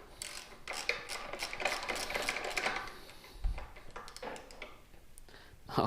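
A hand ratchet clicking rapidly as it is worked for about three seconds, then a few scattered metallic clicks and knocks of the tool.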